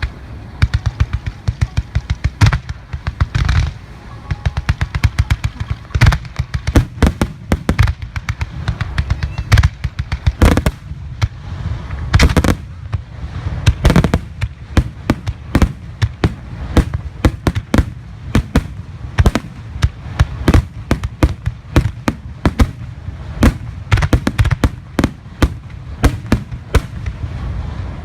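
Aerial fireworks bursting in a dense barrage: many sharp bangs, several a second, over a constant low rumble.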